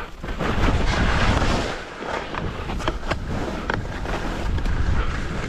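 Wind buffeting the camera microphone while skiing downhill, a steady loud rush and rumble, with the skis hissing over the snow and a few short sharp clicks or scrapes about two to four seconds in.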